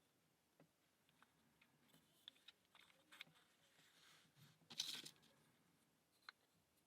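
Faint small clicks and taps of plywood puzzle parts being handled and fitted together, with a brief louder clatter about five seconds in.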